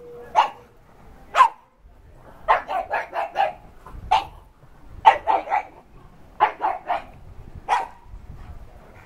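A dog barking repeatedly, single barks mixed with quick runs of three or four barks, with the last bark about eight seconds in.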